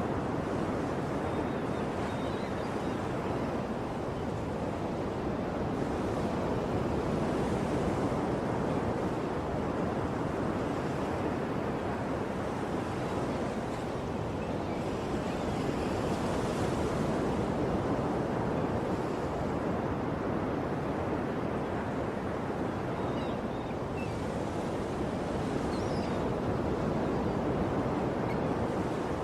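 Ocean surf: a continuous wash of waves with slow swells and ebbs in loudness every several seconds.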